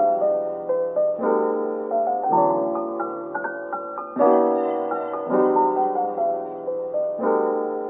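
Background music: gentle piano playing slow chords, one new chord about every second, with a short melody above them.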